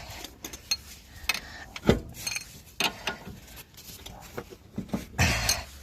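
Ball joint press being wound in with a hand tool to force an old pressed-in ball joint out of a Mitsubishi Outlander lower control arm: a string of irregular metallic clicks and knocks, one louder knock about two seconds in, and a louder scraping burst near the end.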